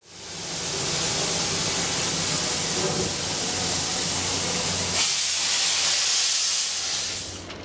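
Class C11 steam tank locomotive No. 325 venting steam with a loud, steady hiss that eases off near the end, over a low steady hum.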